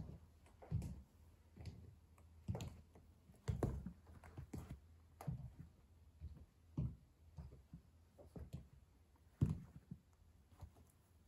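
Stiletto heels of Buffalo London leather boots stepping on a laminate floor: a run of short heel knocks about once a second, the loudest a couple of seconds before the end.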